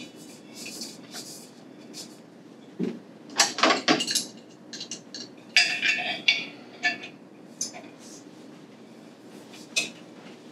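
Metal clinks and clanks from a retard chamber being screwed onto sprinkler-valve trim pipework and turned with an adjustable wrench. Two clusters of sharp clanks come about three seconds and six seconds in, with scattered single clicks between.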